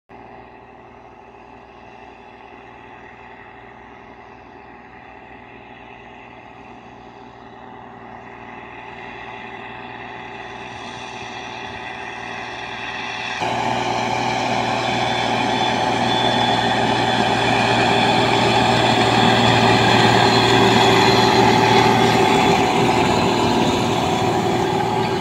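Belarus MTZ-3022 tractor's diesel engine running steadily under load as it pulls an AKSh-7.2 combined tiller through the soil. It grows gradually louder as the tractor approaches, then is much louder and fuller from about halfway through as it runs close by.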